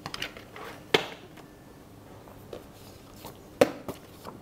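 A disc-bound paper planner handled on a wooden table: pages being shifted and a few sharp clicks and taps, the loudest about a second in and again past the middle.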